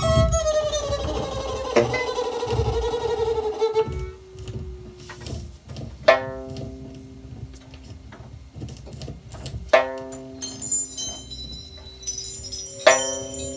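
Live experimental improvised ensemble music. A wavering bowed tone glides slowly downward for about the first four seconds. Then three sharply attacked notes come about three seconds apart, each ringing on over low held tones.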